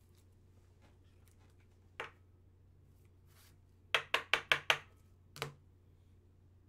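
Trading cards being tapped against a hard surface: one sharp tap, then about two seconds later a quick run of five taps, roughly six a second, and one more shortly after.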